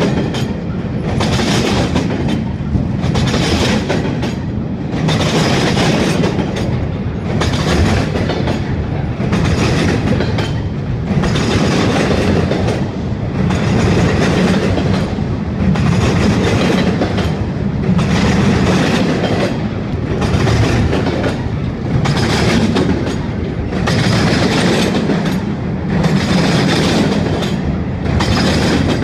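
Double-stack intermodal freight train of container well cars rolling past: a steady loud rumble of steel wheels on rail with a clickety-clack that swells and eases every second or two as the wheel sets go by.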